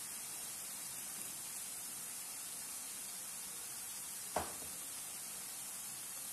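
Batter-coated raw peanuts deep-frying in hot oil in a kadai, a steady sizzling hiss, with a single short click about four and a half seconds in.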